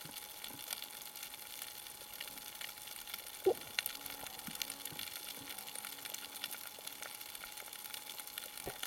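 Underwater reef ambience picked up by a camera in its housing: a steady fine crackle of many faint clicks, with one brief louder sound falling in pitch about three and a half seconds in.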